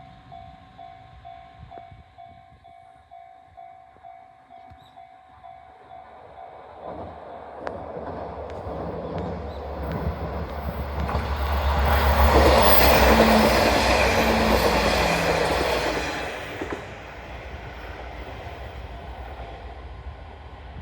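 A level-crossing alarm bell chimes in quick, even beats. Then a Futatsuboshi 4047 diesel railcar train (KiHa 40/47 series) approaches with a growing rumble of engines and wheels. It passes loudest about two-thirds of the way through and fades away.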